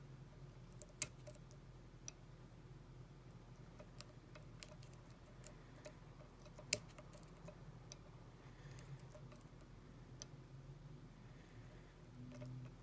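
Faint, irregular clicks and ticks of a lock pick and tension tool working the pins inside an American 700 padlock, with one sharper click about two-thirds of the way through.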